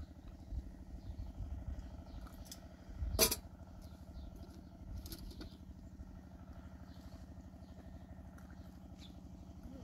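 A motor runs steadily with a low, even thrum in the background. About three seconds in there is one sharp metallic clank, as the small metal teapot is set down on the stone hearth.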